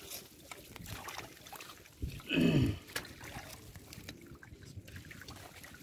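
Hands and a steel bowl working through wet mud and plant debris: soft squelches and light clicks, with one short vocal sound that falls in pitch a little over two seconds in.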